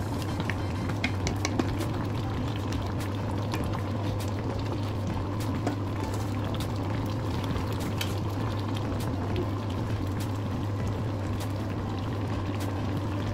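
Shrimp sinigang with coconut milk bubbling steadily at a simmer in a pan, with many small pops of bursting bubbles over a steady low hum.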